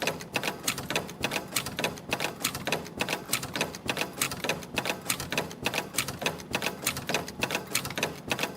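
CNC extension spring machine coiling 0.5 mm wire and forming German hooks. Its tooling makes a fast, steady clatter of sharp clicks, about four or five a second.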